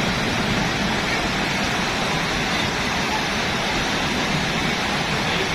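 Fast-flowing floodwater rushing past in a steady, loud, unbroken wash.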